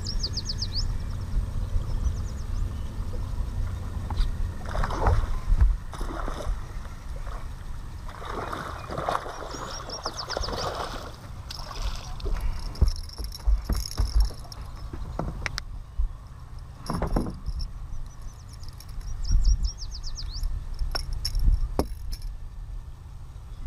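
Wind buffeting a deck-mounted camera microphone on a bass boat, with a bird trilling three times. Splashing as a hooked bass thrashes and jumps at the surface, then several sharp knocks on the boat deck.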